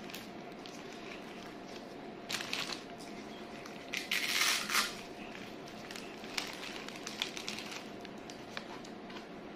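Rustling and crinkling as a toddler's new shoes are handled and put on her feet, with two louder bursts about two and four seconds in and a few small clicks.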